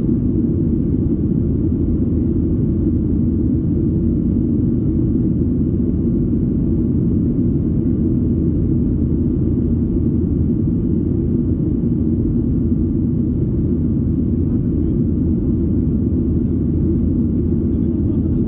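Steady low rumble of a Boeing 737-800's CFM56 engines and airflow, heard from inside the passenger cabin.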